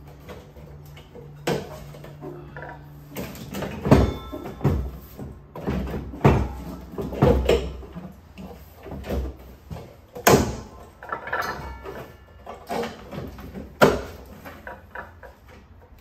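Irregular clunks, knocks and plastic rattling as a SolarEdge inverter is handled, hung on its metal wall bracket and pressed into place, with a few sharp knocks standing out.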